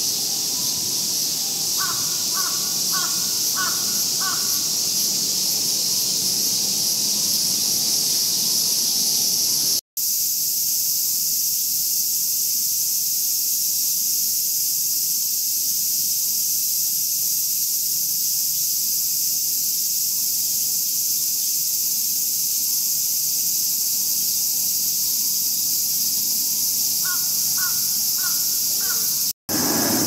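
Cicadas buzzing in a steady, high-pitched chorus. Over it, a bird calls twice in short runs of quick repeated notes, about two a second, once a couple of seconds in and once near the end. The sound cuts out for an instant twice.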